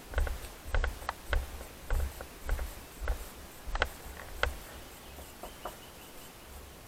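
Footsteps on a hard path at an even walking pace, each step a sharp tap with a low thump, about one and a half a second, stopping about four and a half seconds in.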